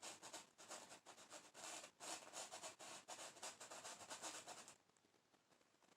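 Quick, repeated strokes of a paintbrush scrubbing white oil paint onto a canvas, a soft scratchy rubbing that stops shortly before the end.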